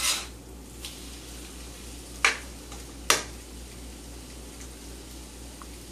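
A scramble of eggs, fried potatoes and onion sizzling steadily in a skillet. There is a sharp knock of the spatula against the pan at the start and two more knocks about two and three seconds in.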